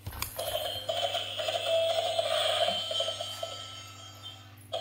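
Battery-powered walking plush unicorn toy on a leash playing a tinny electronic tune through its small speaker. It starts with a click and cuts out near the end.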